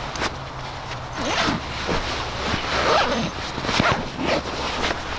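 Mummy sleeping bag being zipped up, in a series of short rasping pulls, with its nylon shell rustling as a person wriggles into it.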